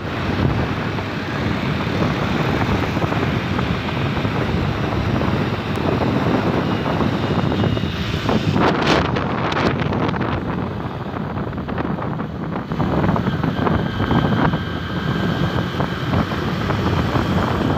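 Steady road and wind noise from a vehicle travelling along a highway, with wind rushing on the microphone and a brief louder rush about halfway through.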